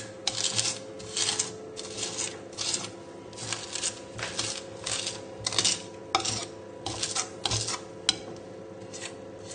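Garlic and coarse sea salt crunching and grating under the flat of a chef's knife, pressed and dragged across a wooden chopping board in repeated strokes, about two a second, stopping about a second before the end. The salt is working as an abrasive, grinding the garlic down into a paste.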